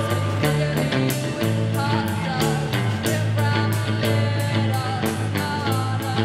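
Live rock band playing an instrumental passage: held bass notes and a steady drum beat, with sliding, bent guitar notes over the top.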